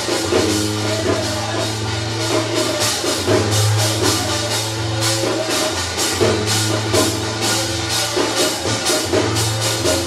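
Korean shamanic ritual (gut) music: metal percussion struck in a steady beat about three times a second over drumming, with a held melodic line changing notes.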